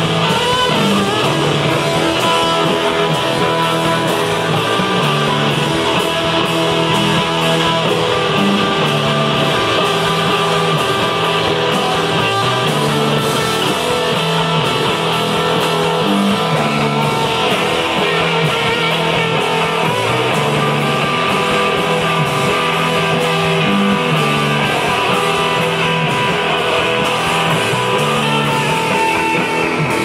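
Live rock band playing loudly without pause: electric guitar over a repeating low riff and drums with cymbals.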